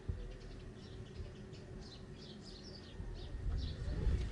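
Small birds chirping over and over in short, quick calls. A brief knock comes right at the start, and a low rumble of movement on the microphone grows louder about three seconds in.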